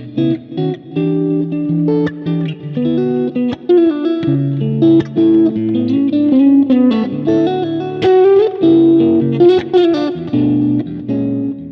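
Fender Japan Modern HSS Stratocaster electric guitar playing a riff through the BIAS FX 2 Mobile amp simulator. It goes in short, chopped chords and single notes with brief gaps between them.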